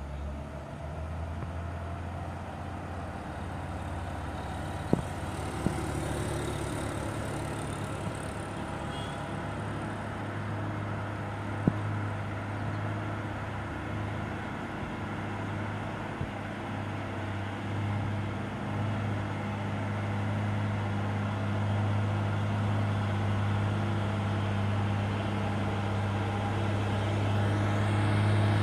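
Diesel engine of a heavy three-axle cargo truck running steadily as it approaches, a low drone that grows louder toward the end, with a couple of brief clicks along the way.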